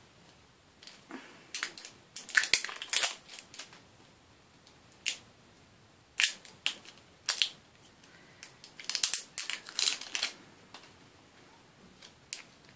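Small plastic packaging of a plug-in fragrance refill being handled and opened by hand: sharp crackles and clicks in several short clusters, the busiest about two to three and a half seconds in and again around nine to ten seconds.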